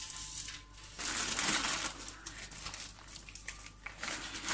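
Baking paper crinkling and rustling as it is handled around a puff-pastry roll, loudest for a second or so about a second in and again near the end.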